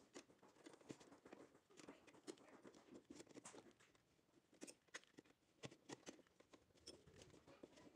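Near silence, with faint scattered small clicks and taps as a nut is threaded by hand onto a clutch master cylinder.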